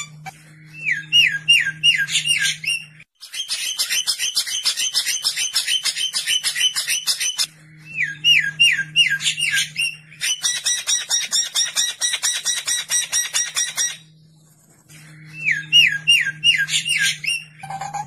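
Recorded songbird song used as a masteran tutor track of harsh calls: a run of five quick swooping whistles, then a long, fast rattling trill. The phrase loops, with the whistle run heard three times and the trill twice, and a short pause about 14 seconds in.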